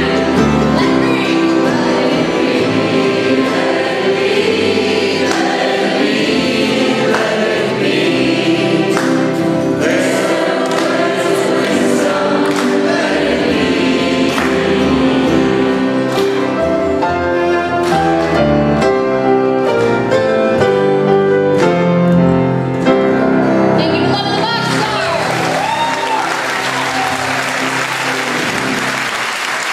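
Live acoustic performance: acoustic guitar, cello and double bass under lead vocals with many voices singing along. The song ends about 24 seconds in and the audience applauds.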